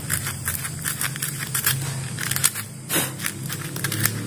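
Sandpaper scratching in quick, irregular strokes over the small metal contact strips of a Philips blender's push-button speed switch, sanding off rust that is suspected of keeping the contacts from touching fully so the buttons don't work.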